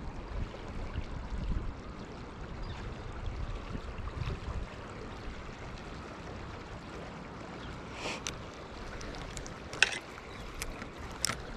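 Shallow river water running steadily, with wind rumbling on the microphone. A few sharp clicks come in the last few seconds.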